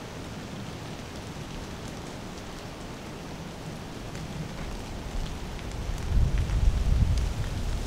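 Steady patter of rain dripping through wet hardwood timber, with a louder low rumble about six seconds in.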